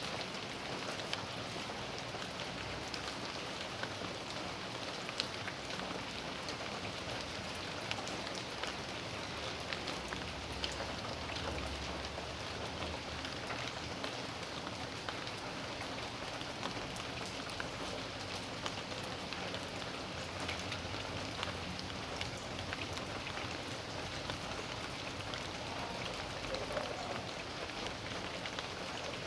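Steady rain falling: an even hiss with many scattered sharp ticks of individual drops striking.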